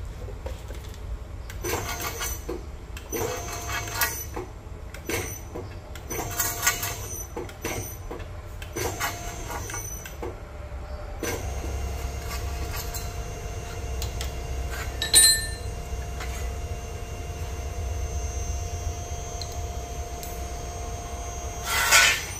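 Nargesa CC90 tube bender bending aluminium square tubing. Several short bursts of machine running and metal clatter come first, then a steady motor hum for about ten seconds as the bend is made. It ends with a sharp metallic clatter as the bent tube comes off the die.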